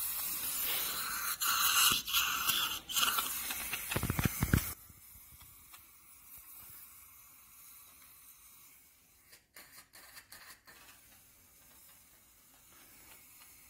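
Dental surgical suction hissing and slurping in the patient's mouth for the first few seconds, then cutting off suddenly to a faint background with a few soft clicks.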